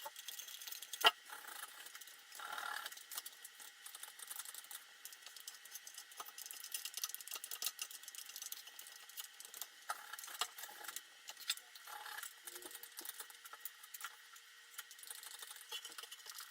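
Metal spreader scraping and clicking as it works polyester body filler over a sheet-metal panel: faint, light scraping throughout, with a sharp click about a second in.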